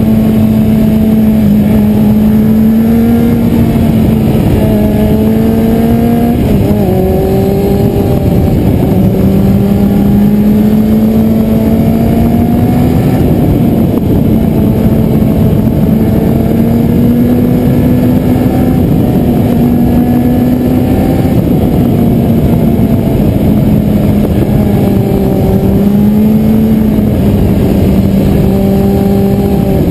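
Kawasaki Z750 inline-four engine running under way at steady mid revs, its note rising and falling gently with the throttle and dipping briefly about seven seconds in, over heavy wind rush on the bike-mounted camera.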